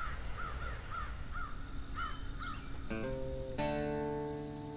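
A bird calls over and over in quick, short, rising-and-falling notes. About three seconds in, acoustic guitar music comes in: a plucked note, then a strummed chord left ringing.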